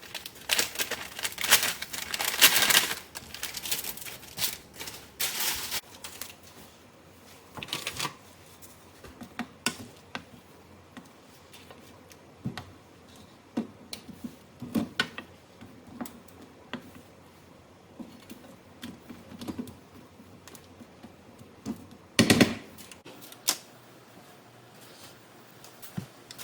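Kitchen food-preparation sounds with no talk or music: a quick run of sharp clicks and knocks at first, then scattered single taps and clatters of utensils, with one louder clatter near the end.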